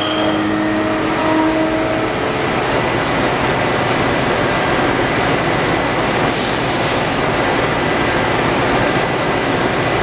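MIT's Alcator C-Mod tokamak fusion reactor during a plasma shot: a loud and eerie sound. Several held whining tones fade out within the first two seconds, under a steady rushing roar. Two sharp crackles come about six and seven and a half seconds in.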